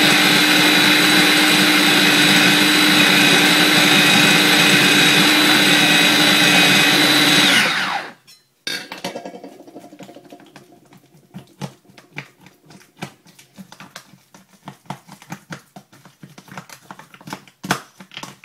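Small electric food processor running steadily, its blade churning a thick, poorly blending mix, then winding down in pitch and stopping about eight seconds in. After it stops, a metal spoon clicks and scrapes in the plastic bowl as the mix is poked down.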